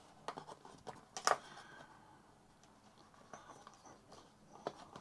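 Fingers and fingernails tapping and scraping on a rigid cardboard box while prying at its inner lid: a few scattered light clicks, the sharpest about a second in.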